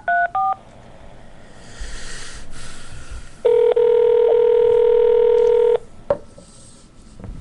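Telephone touch-tone dialing: the last two keypad beeps of a phone number, then faint line hiss while the call connects. One steady ringback tone sounds for about two seconds, followed by two clicks on the line.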